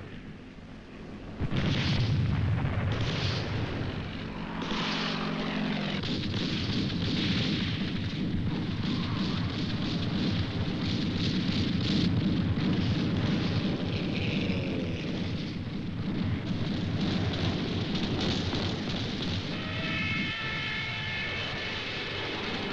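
Jet aircraft flying over, mixed with anti-aircraft gunfire and explosions. This is a film battle soundtrack that comes in suddenly after a quiet first second or so. A short falling tone comes about halfway through, and a high, steady whine near the end.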